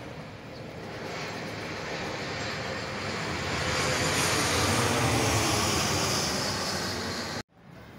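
Twin rear-engined jet airliner passing low overhead. Its engine noise swells to a peak as a high whine falls in pitch, then the sound cuts off abruptly near the end.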